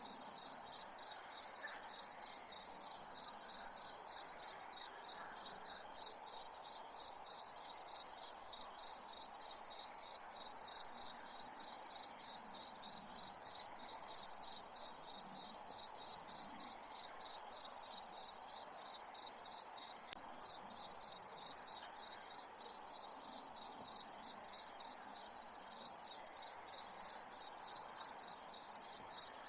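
Cricket chirping: a high-pitched chirp repeated in a rapid, even rhythm, with a brief break near the end.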